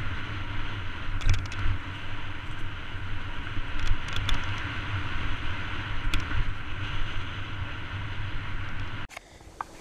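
Wind rushing over a helmet-mounted GoPro and the rumble and rattle of a mountain bike descending a dirt trail, with a few sharp knocks as it rides over bumps. The noise cuts off suddenly about nine seconds in.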